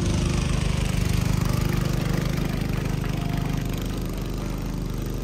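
Motorboat engine running steadily with a fast, even pulse, dropping a little in level after about three and a half seconds.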